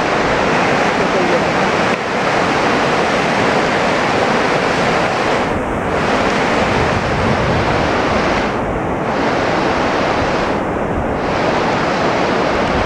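River rapids rushing: a loud, steady rush of white water tumbling over a rocky riverbed.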